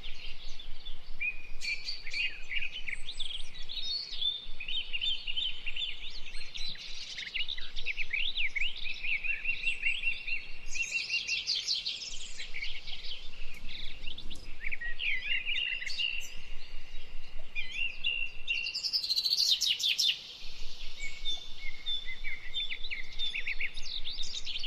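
Many small birds chirping and calling at once, quick overlapping chirps and short trills throughout, with a few brief lulls.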